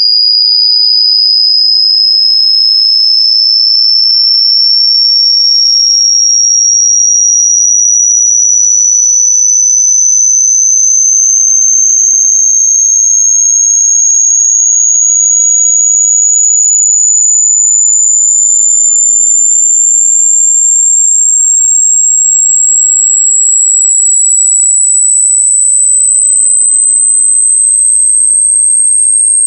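A loud, pure electronic sine tone sweeping slowly and steadily upward in pitch, from a high whine to a piercing squeal. It is a test-tone style frequency sweep sold as a 'painful sound' effect.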